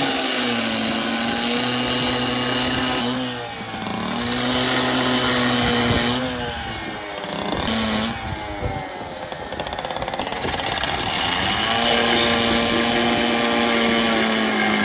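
Two-stroke gas cut-off saw running near full revs, its abrasive wheel grinding through the rusted steel corner of a boat ramp. The engine note sags twice, briefly about three seconds in and for a longer stretch in the middle, then climbs back up and holds steady.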